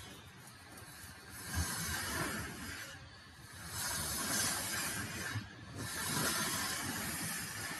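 Faint background hiss, with no speech, swelling and fading three or four times.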